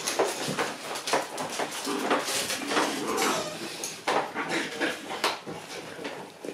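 Month-old Shiba Inu puppies playing on a hard floor: a busy, irregular run of small taps, clicks and clatters as they scamper, tussle and knock into things.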